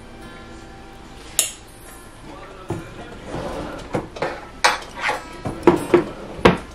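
A metal spoon clinking and scraping against a cooking pot while stirring: one sharp clink, then a run of clinks and scrapes that get louder toward the end.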